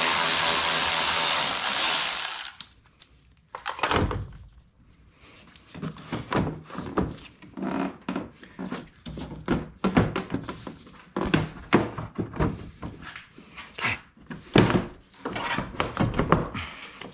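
Cordless electric ratchet running steadily for about two and a half seconds as it backs out a 10 mm bolt, then stopping. After that comes a long run of irregular knocks, thumps and rattles as the plastic front bumper cover is shimmied loose by hand.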